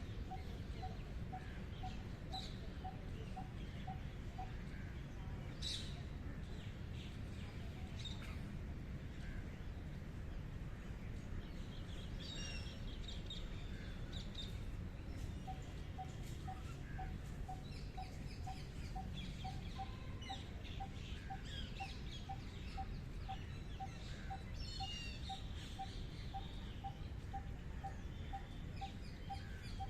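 Wild birds calling: scattered high chirps and trills. A steady run of short, lower notes, about three a second, plays in the first few seconds and again from about halfway. A steady low rumble of outdoor background noise sits underneath.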